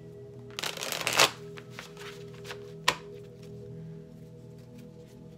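A Clow Tarot deck being shuffled by hand: a short rustling run of cards about half a second in that ends in a sharp snap, then a single sharp click near the middle. Soft background music plays under it.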